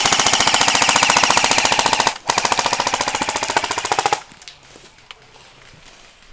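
Airsoft gun firing on full auto: two long bursts of rapid, evenly spaced shots, the first breaking off about two seconds in and the second stopping about four seconds in.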